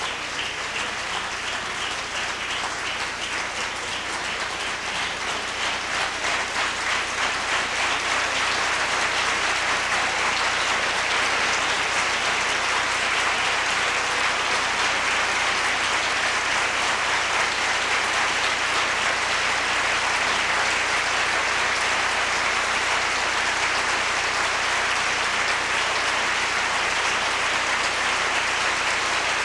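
Concert audience applauding, swelling over the first several seconds and then holding steady and full.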